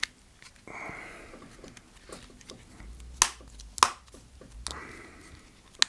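Two sharp clicks about half a second apart as the iPhone 5s display assembly snaps into the phone's frame, with faint handling rustle around them. The clean snap is the sign that the display is seating properly.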